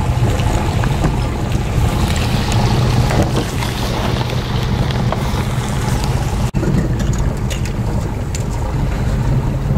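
Boat engine running with a steady low hum, under wind noise on the microphone and water rushing past the hull. The sound cuts out for an instant about six and a half seconds in.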